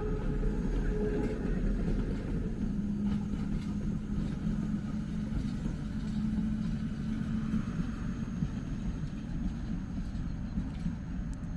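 Narrow-gauge electric railcar running, with a steady rumble and a low motor hum from about three seconds in.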